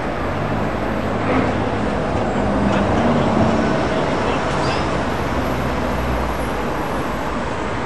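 Engine and road noise of an open-top double-decker bus, heard from its open upper deck while it drives along.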